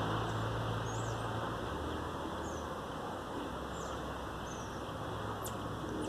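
Short, high-pitched animal chirps, about six of them scattered over a few seconds, some dropping quickly in pitch. Under them is a steady background rush, with a low engine hum that fades about a second and a half in.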